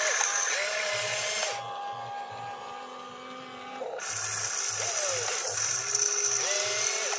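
Radio-controlled excavator's electric motors whining, gliding up and down in pitch as the boom lifts and the upper body swings to the truck. A high hiss drops away about one and a half seconds in and returns about four seconds in, over a low pulsing about three times a second.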